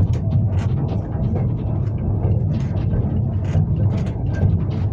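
Inside a moving vintage railway carriage: a steady low rumble of the wheels on the track, with frequent irregular clicks and rattles from the running gear and the coach.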